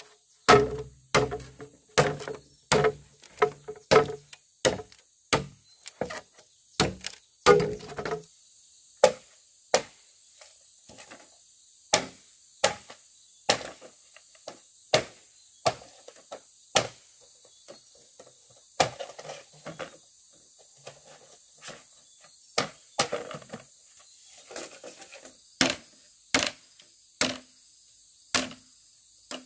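Repeated sharp chopping blows, about two a second for the first eight seconds, then slower and more spaced out, with a steady high insect drone behind them.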